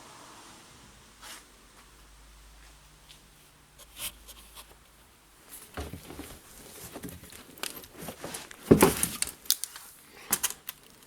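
Handling noises: scattered clicks, knocks and short rustling scrapes, busier in the second half, with one loud thump about nine seconds in.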